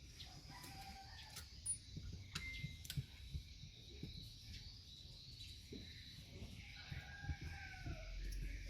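A rooster crowing twice, faintly, each call about a second long and falling in pitch at the end, with scattered light clicks and taps.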